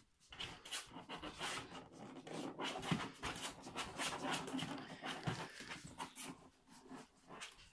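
Jack Russell terrier and Labrador retriever puppies panting and snuffling, with many small scratches and knocks as they paw at a plastic dog bed.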